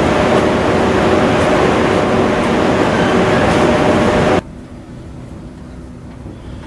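EF81 electric locomotive standing at the platform with its cooling blowers running, a loud steady roar carrying two steady hum tones. About four seconds in, it cuts off abruptly to the much quieter, even rumble inside a sleeper car as the train starts moving out.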